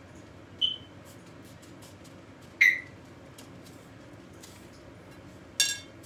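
Three short ringing clinks of a utensil against a ceramic bowl while croquettes are dipped in egg and bread crumbs, the middle one loudest, over a faint steady room hum.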